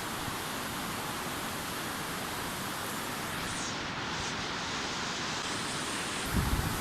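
Steady outdoor rushing noise, an even hiss like running water or wind, with a brief low buffeting on the microphone near the end.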